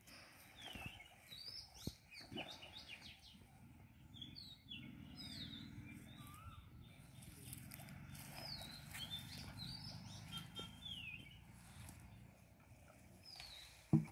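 Small birds chirping, many short falling calls over and over, over a faint low rumble, with one sharp knock just before the end.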